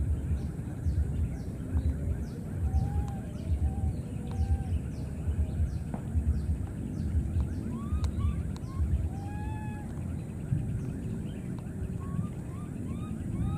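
Short rising-and-falling animal calls, singly and in small clusters and more frequent in the second half, over irregular low rumbling thumps.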